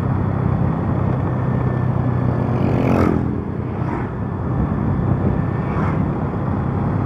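Motorcycle engine running steadily in gear down a long descent, held back on engine braking to spare the brakes, with road and wind noise over it. A short falling whine with a sharp click about three seconds in, and fainter clicks near four and six seconds.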